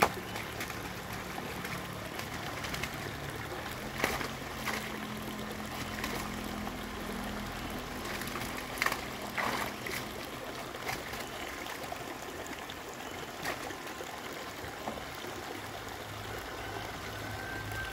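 Water trickling and running steadily into a drained fish pond, with a few sharp splashes from a scoop net and feet moving through shallow muddy water, the loudest about four seconds in and around nine seconds in. A faint low hum sits underneath.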